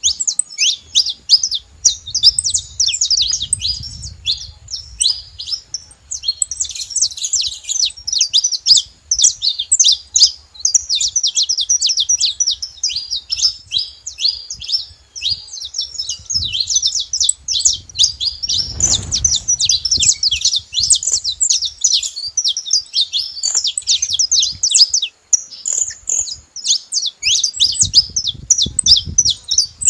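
Saffron finches chirping and singing together: a dense, unbroken stream of rapid, high chirps.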